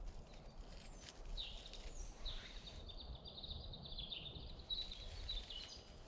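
A small songbird singing one long, high, wavering warble of about four seconds, starting about a second and a half in, over a low steady background rumble.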